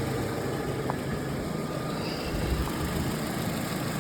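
Opel Z16XER 1.6-litre four-cylinder petrol engine idling steadily.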